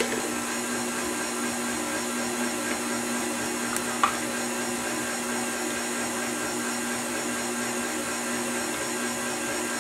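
KitchenAid Classic tilt-head stand mixer running steadily, its beater working cake batter in a steel bowl. A single light clink about four seconds in.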